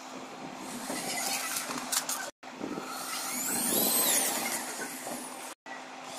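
Makita cordless drill running into the wooden edge of a drawer box. Its motor whine rises and then falls three to four seconds in.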